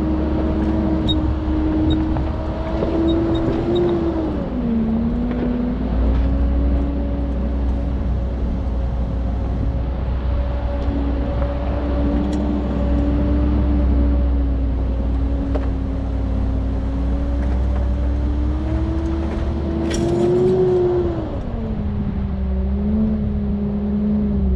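Land Rover Discovery 2 driving off-road at low speed, its engine and drivetrain a steady drone over a deep rumble. The pitch rises a little and then falls twice, about four seconds in and again near the end, as the throttle eases, with a brief knock or two about twenty seconds in.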